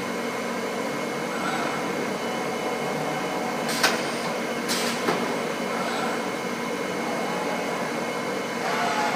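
Steady machine noise from a robotic welding cell, with two short hissing bursts about a second apart near the middle.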